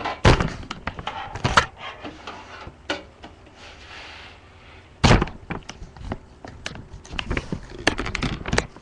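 Handling knocks, scrapes and clicks of a graphics card being worked into a desktop computer case: sharp knocks about a quarter second in, around one and a half seconds and about five seconds in, a brief scrape, then a quick run of small clicks near the end.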